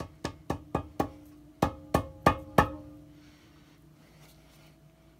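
Rubber mallet tapping a new lower shaft seal down into the metal tube of a Kenmore top-load washer, seating it evenly. There are about nine quick taps in the first two and a half seconds, each with a short ringing from the metal, then a pause.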